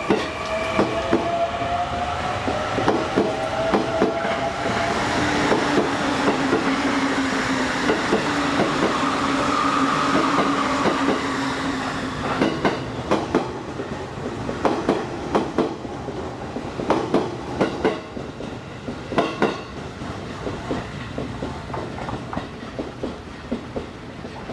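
JR East E531 series electric train pulling out and running away: the traction motors' whine rises in pitch over the first several seconds as it gathers speed, and its wheels click over the rail joints in pairs and runs as it recedes.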